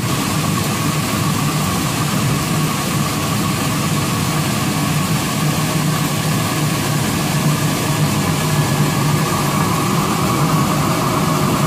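Textile warping machine running, winding cotton warp yarns onto its beam: a loud, steady mechanical drone with a low hum and a fainter higher whine over a constant hiss.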